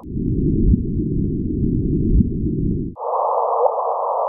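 LIGO gravitational-wave signal of a black hole merger (GW150914) converted into audible sound: a steady rushing noise with short rising chirps repeating about every one and a half seconds. For about three seconds it is played low, then it switches to the same noise and chirp shifted higher in pitch.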